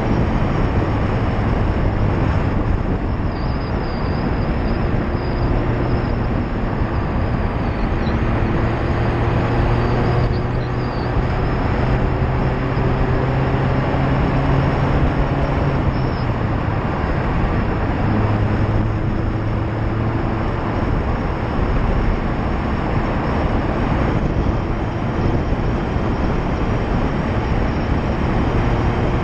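Loud tyre roar on asphalt, heard from a front-bumper mount on a Mazda MX-5 ND2, with the car's four-cylinder engine and exhaust audible underneath. The engine note rises slowly in pitch and breaks off a couple of times, around ten seconds in and again a few seconds later, as gears are shifted.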